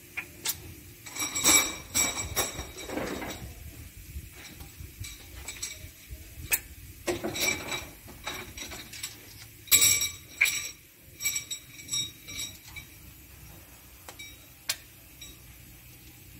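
Small steel valve spring retainers and collets clinking together in a hand and against the valve springs of a WD615 diesel cylinder head. Irregular sharp metallic clinks that ring briefly, the busiest clusters about a second and a half in and again about ten seconds in.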